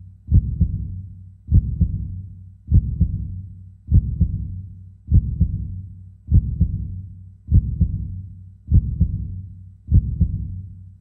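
Heartbeat sound effect: slow, deep double thumps (lub-dub), about one beat every 1.2 seconds, each pair fading before the next.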